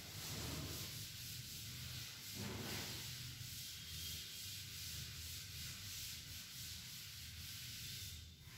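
Chalkboard duster rubbing across a chalkboard, wiping off chalk in repeated back-and-forth strokes; faint and scratchy.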